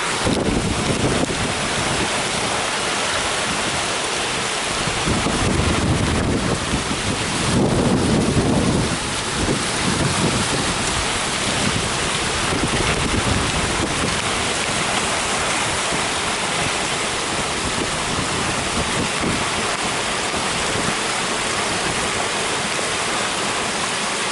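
Steady rushing of floodwater in heavy typhoon rain, with a louder, deeper surge about five to nine seconds in.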